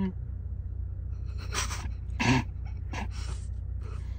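Stifled laughter: a string of short, breathy snorts and puffs through the nose, over the steady low hum inside a car.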